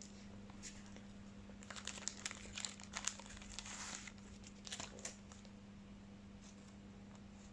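A trading-card pack's wrapper crinkling and tearing, in a run of crackles from about two seconds in to about five seconds in.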